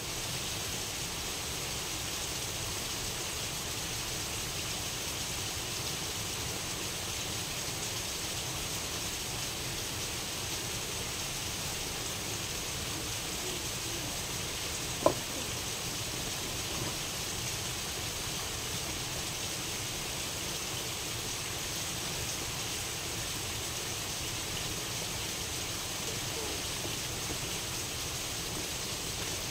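A steady, even hiss with one sharp click about halfway through.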